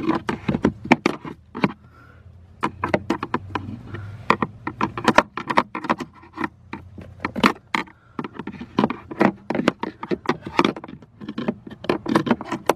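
A screwdriver scraping and clicking against the plastic blower motor housing, raking packed debris out through the resistor opening. Irregular sharp clicks and scrapes come several times a second.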